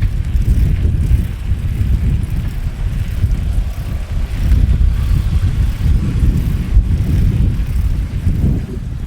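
Road traffic going by: a loud, low rumble of vehicles that swells and eases a few times.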